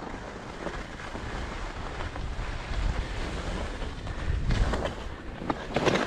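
Wind buffeting the microphone: a steady low rumble and hiss, with a couple of short crunches in the snow near the end.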